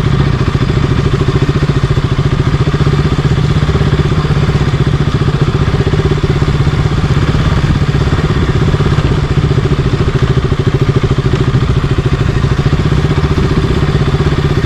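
Single-cylinder 200 cc motorcycle engine running steadily at an even pitch while the bike is ridden over loose, slippery dirt, heard from a helmet-mounted camera.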